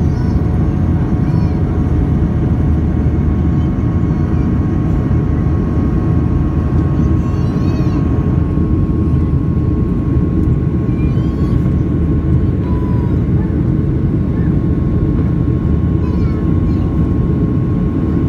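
Steady cabin roar of a jet airliner climbing after takeoff: engine and airflow noise heard from a window seat over the wing. A thin steady whine sits above the roar.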